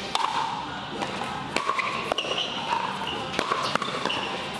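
Pickleball rally: repeated sharp pops of paddles striking the hollow plastic ball and the ball bouncing on the court, several in quick succession.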